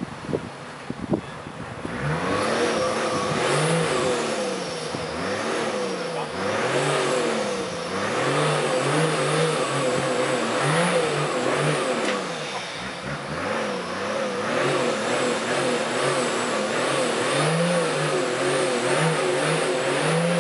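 Toyota Land Cruiser 70's engine revving up and down again and again as it drives through deep mud, the pitch rising and falling every second or two. A few sharp knocks come in the first second or so, before the revving begins.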